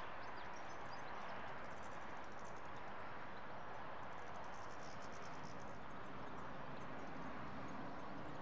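Flock of European goldfinches twittering: many short, high, thin chirps, denser in a couple of stretches, over a steady background hiss.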